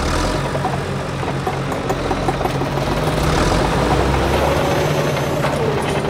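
Engine sound effect of a small construction vehicle, running steadily with a low drone.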